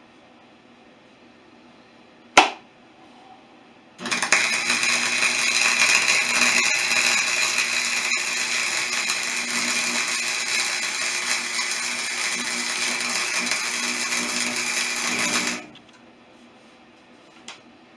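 A power tool starts suddenly about four seconds in, runs steadily with a high whine for about eleven seconds, then stops. A single sharp click comes a little before it starts, and a faint click near the end.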